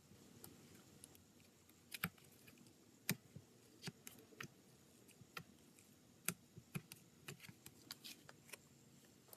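Slime being squeezed and poked, giving irregular sharp clicks and little pops, a few loud ones about two, three and six seconds in, over a quiet background.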